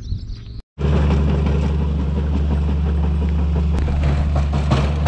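An engine running steadily, a loud low drone that starts abruptly after a short cut to silence under a second in, with scuffing noise on top.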